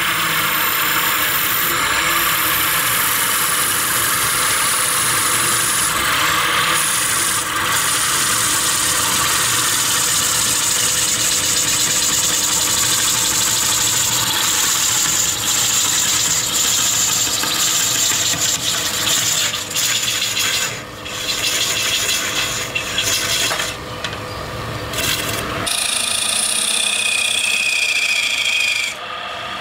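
Wooden disc spinning on a belt-driven wood lathe while a hand-held chisel cuts into it: a steady scraping of the tool on the wood over the running machine. Near the end the deeper sound drops away and a short high squeal comes in.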